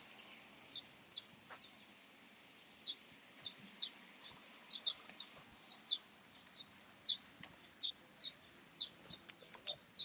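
A bird chirping over and over in short, high notes, a few at first and then two or three a second from about three seconds in.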